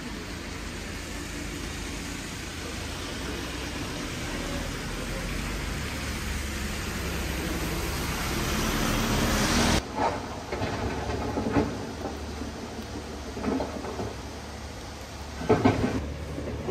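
Steady rushing outdoor noise swelling over about ten seconds and cutting off abruptly, then a softer hiss with scattered light knocks.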